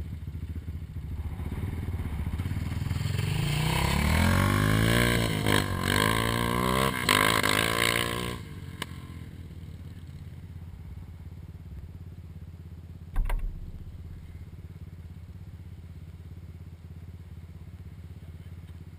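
ATV engine accelerating hard at full throttle, its pitch climbing in several steps as it shifts up through the gears, then dropping away suddenly about eight seconds in. A low steady engine hum follows, with one short thump partway through.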